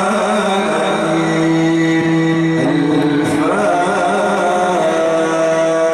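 A man's voice in the melodic mujawwad style of Quran recitation, holding long drawn-out notes with a short ornamented turn in the middle.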